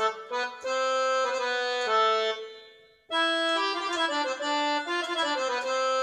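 Electronic keyboard playing a tune with chords on its concert accordion voice, the notes held with a reedy, sustained tone. The first phrase fades out about halfway through, and after a brief gap a second phrase begins.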